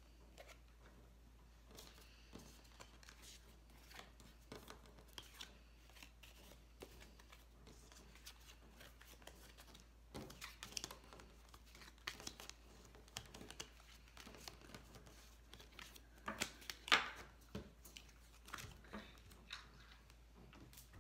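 Tarot cards being gathered up off a wooden table: faint, scattered slides, taps and flicks of card stock, loudest a few seconds before the end.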